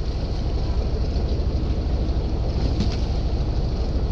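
Fishing boat's engine running at idle, a steady low rumble with a fast, even pulse.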